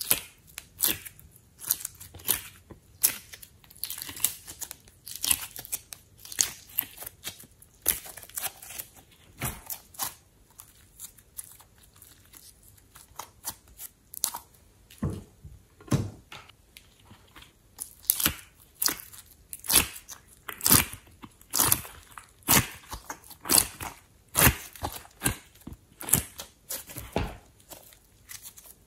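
Hands pressing, squishing and stretching soft clay and slime: irregular sticky pops and crackles, about one or two a second, fainter for a few seconds around the middle.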